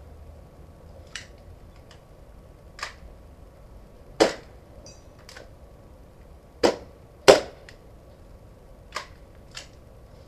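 Gas airsoft pistols fired one shot at a time: about seven sharp cracks at irregular intervals, the loudest three around the middle.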